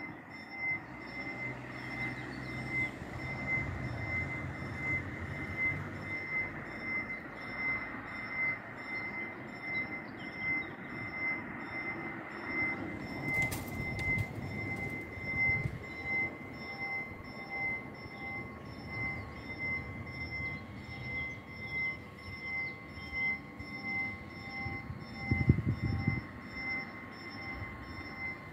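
Italian level-crossing warning bell ringing in steady repeated strokes, a little over once a second, as the crossing closes ahead of a train. Near the end there is one louder low thump.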